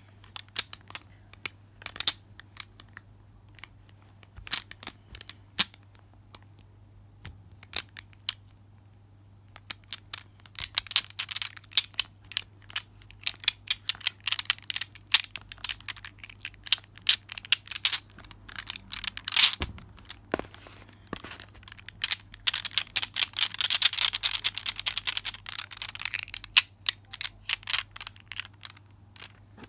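Atomic fidget ball squeezed and worked in the hand, its hard glossy balls clicking and clacking against each other. The clicks are sparse at first and turn rapid and dense from about ten seconds in, thickest about two thirds through.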